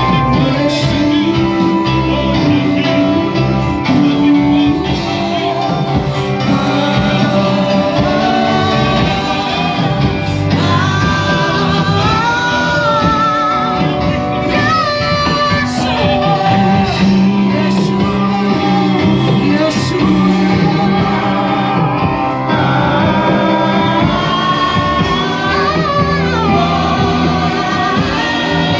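Church worship music: sung voices with a wavering melody over steady instrumental accompaniment with bass.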